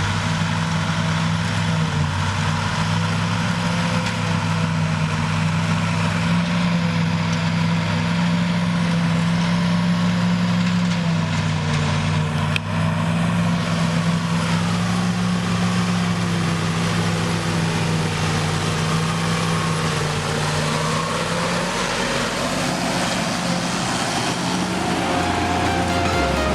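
Massey Ferguson 6465 tractor engine running steadily under load, driving a JF900 trailed forage harvester as it picks up and chops first cut grass silage; a brief click about halfway through.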